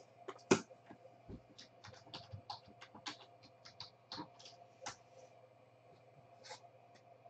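Thick trading cards clicking and tapping as they are handled and set down into a box: one sharper click about half a second in, then a quick run of light clicks, and a last one near the end.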